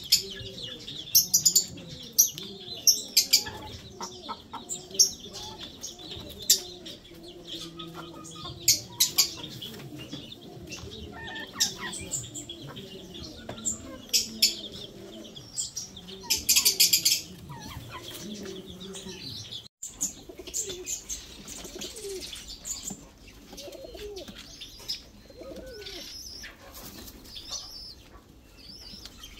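Chickens and pigeons in their coop: low clucking and cooing with chirps, broken by repeated short bursts of wing flapping. About two-thirds of the way through the sound thins out to scattered calls and flutters.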